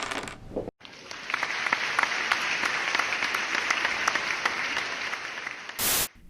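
Applause, a dense patter of many hands clapping, starting about a second in and running for about five seconds. A short, loud burst of noise cuts in near the end.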